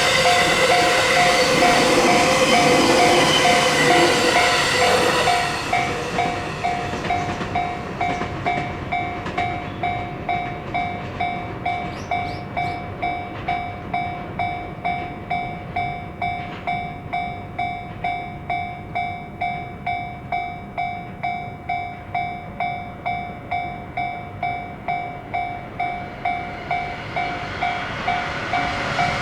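Japanese level-crossing warning bell ringing, an electronic ding repeating nearly twice a second throughout. A passing electric train's running noise is loud over the first five seconds or so, then fades. Near the end the rail noise rises again.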